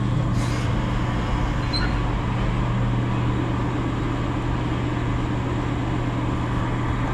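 Steady mechanical hum: a constant low droning tone over a broad hiss, unchanging throughout.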